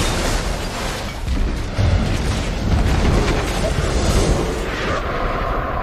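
Movie explosion effects: a sustained blast and rumble of a fireball tearing through a house, with flying debris, under dramatic music. A held tone comes in near the end.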